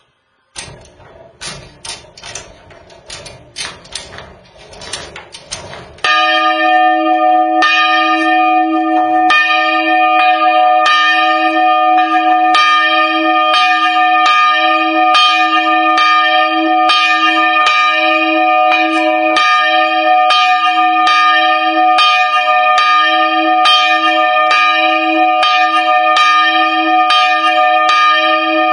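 Single bronze church bell, cast 1779 and 64.5 cm across, being set swinging: first a run of clicks and knocks from the mounting and drive, then about six seconds in the clapper begins striking. It settles into a steady rhythm of strokes a little over once a second, each ringing on with a deep hum under brighter overtones.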